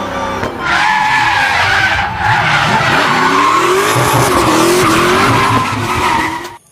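A car skidding, tyres squealing with wavering, sliding pitch over engine noise; it starts about half a second in, dips briefly near two seconds, and cuts off near the end.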